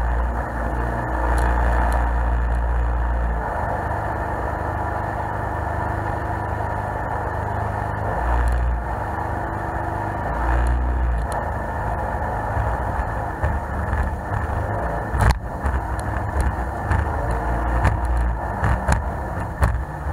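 21-foot HCM jet boat's engine running steadily under way, with water rushing past the hull and the pitch shifting now and then. In the last few seconds, as it runs through rough water, the hull gives several sharp knocks.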